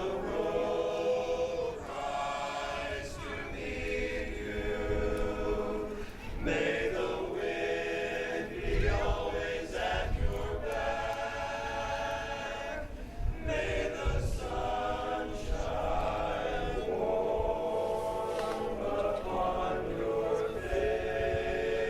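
Choir singing in harmony, holding chords that change every second or two.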